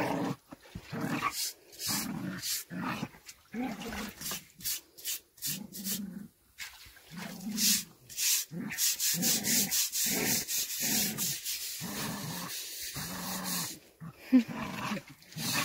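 Two dogs growling in short bursts as they play-fight. In the middle, a sponge scrubs wet stone paving in rasping strokes, washing cement slurry off freshly set fieldstones.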